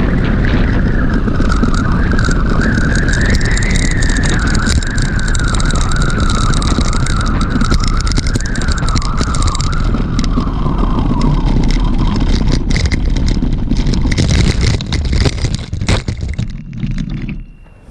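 Riding noise from a mountain bike on a rough trail: wind buffeting the action-camera microphone over the rumble and rattle of tyres on loose ground, with a wavering high whine through the first twelve seconds. The noise drops off sharply near the end.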